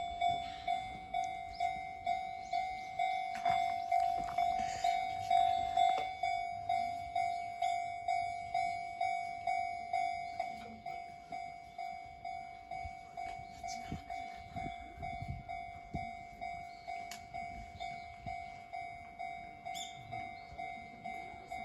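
Japanese railway level-crossing warning bell ringing: a single clear tone struck about twice a second, without a break. It is louder for the first six seconds and somewhat quieter after that.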